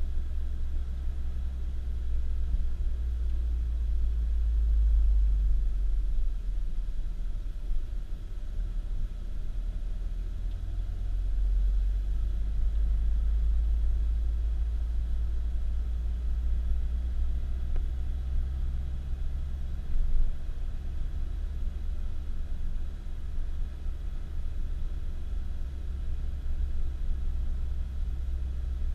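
Low, steady rumble of a car in motion, heard from inside: road and engine noise, swelling slightly now and then.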